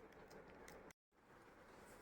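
Near silence: faint room tone, with the audio dropping out completely for a moment about halfway through.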